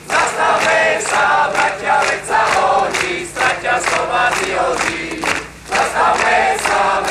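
Large crowd chanting together in rhythmic, repeated phrases, with many hands clapping along.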